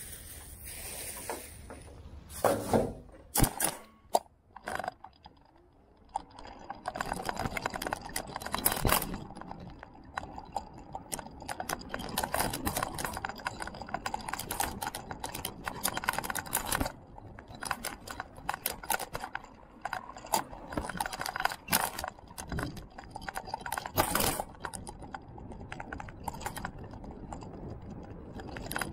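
Irregular clattering and rattling from a vehicle jolting along a rough paved road, near-continuous after about six seconds. A few sharp knocks come earlier, around two to five seconds in.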